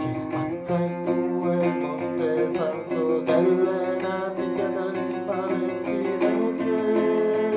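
Solo guitar playing: a run of quickly plucked notes over low notes that keep ringing.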